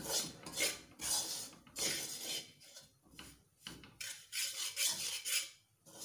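Metal spatula scraping and stirring dry flour with a little oil in a metal pan as it is toasted on low heat: repeated rasping strokes, about one or two a second.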